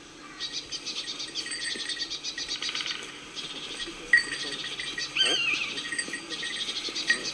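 Insects chirping in rapid, even trains of high-pitched pulses that stop and start, with a short call sweeping up in pitch about five seconds in.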